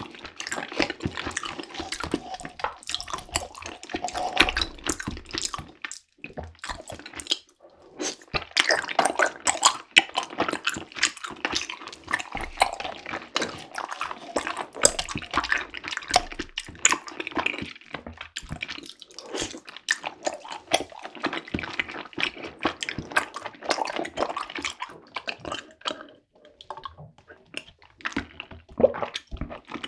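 Close-miked eating sounds of bubble tea: wet slurping through a straw and chewing of soft, chewy tapioca pearls, a dense run of squishy clicks and sucking noises with a couple of short pauses.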